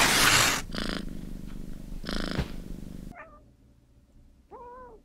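Cat purring, swelling about every second and a half, cutting off suddenly about three seconds in; near the end a cat gives a short meow that rises and falls.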